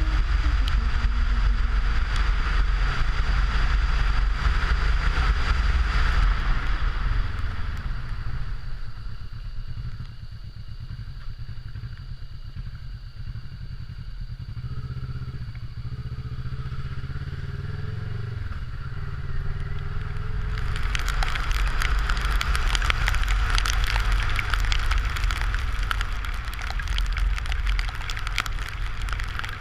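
Kawasaki Versys 650's parallel-twin engine running under way off-road. A loud rushing noise covers it for the first seven seconds or so and again from about twenty seconds in. In the quieter middle the engine note rises and falls with the throttle.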